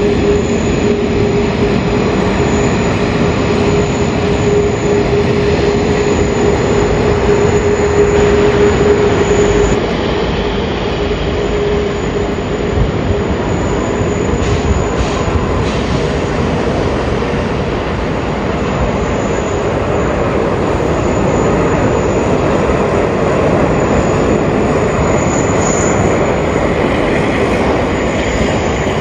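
Jet airliner engines running at high power. For the first ten seconds or so it is a Boeing 777-300ER's GE90 engines on takeoff, with a steady whine over the rumble. Then a different stretch of engine noise follows from an Airbus A330 as it comes in to land.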